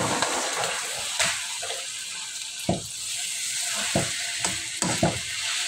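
Cooked white rice frying in oil and adobo drippings in a metal pan, sizzling steadily, while a metal spatula scrapes and knocks against the pan several times as the rice is turned.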